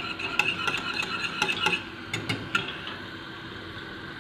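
A wire whisk stirring thickened béchamel sauce in a small saucepan, its wires clicking quickly and unevenly against the pan. The clicking stops about two and a half seconds in.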